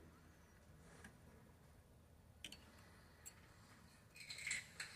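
Small metal fishing-reel parts being handled: a few faint single clicks, then a brief run of light scraping clicks near the end as a pick tool works at the main gear and drag washers.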